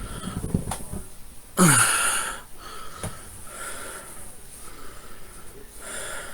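A person breathing close to the microphone, with one loud breath about a second and a half in whose pitch falls, then softer breaths.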